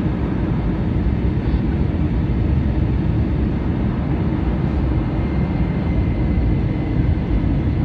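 Steady low rumble of an Airbus airliner heard from inside the passenger cabin: engine and airflow noise, with a faint high steady tone joining about halfway through.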